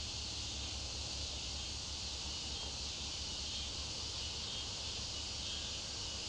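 Steady chorus of crickets and other insects: an unbroken high-pitched buzzing, over a low steady hum.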